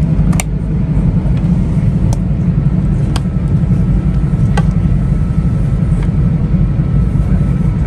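Steady low rumble of a Shinkansen bullet train running, heard inside the passenger car, with four light clicks in the first five seconds.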